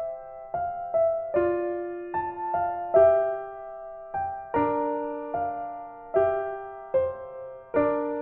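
Background music: a soft piano tune, single notes and chords struck one after another and left to fade.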